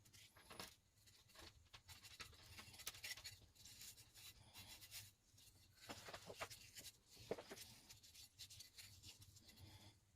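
Faint, irregular scratching and rubbing with a few small knocks, as an old rusty iron spoon is worked by hand.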